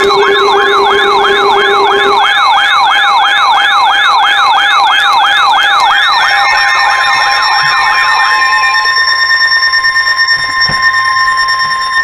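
Electronic warning alert tone: a siren-like warble sweeping rapidly up and down, about two and a half sweeps a second, over a steady high tone. The warble stops about eight and a half seconds in, and the steady tone sounds on alone.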